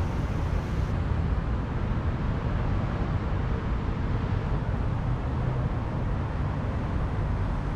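Steady rumble of road traffic and city street noise, with no single event standing out.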